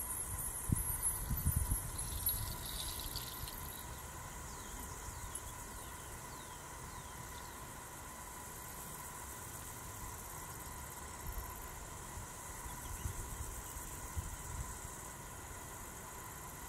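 A hand-held bundle rattle shaken with a fine high rustle that stops about four seconds in, with a few soft thumps as it is handled. Then quiet open-air ambience with a faint low rumble.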